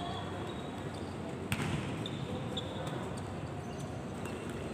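A volleyball struck once by hand, a sharp slap about a second and a half in, over the steady background noise of a large indoor sports hall.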